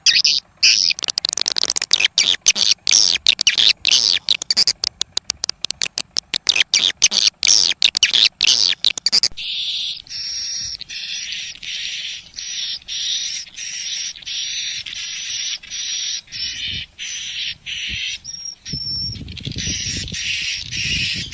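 Recorded swiftlet calls of the kind played through speakers to lure swiftlets into a nesting house: dense, rapid twittering chirps and clicks. About nine seconds in, the sound switches abruptly to a different, duller-sounding track of chirping, with a low rumble near the end.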